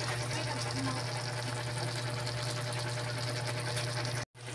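Chicken pieces simmering in broth in a wok, a steady fine bubbling and crackle over a constant low hum from the stove. The sound cuts out for a moment near the end.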